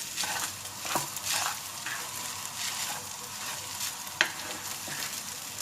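Fried rice sizzling in a hot pan while being stirred, in repeated scraping strokes, with a sharp click about four seconds in.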